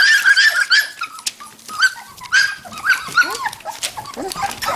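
Standard poodle puppies whining and yipping: a quick string of short, high squeals, about five a second in the first second, then more scattered.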